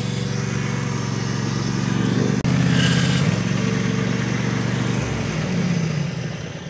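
Riding lawn mower's engine running steadily at working speed as it drives over a layer of dry leaves, its collector jammed with leaves so that it fails to pick them up. The engine note fades out near the end.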